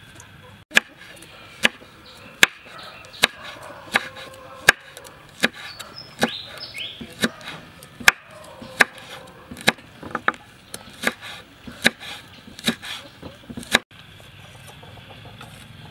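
Kitchen knife slicing a red chili pepper on a wooden cutting board: sharp knocks of the blade on the board about once a second, coming faster after about ten seconds, then stopping.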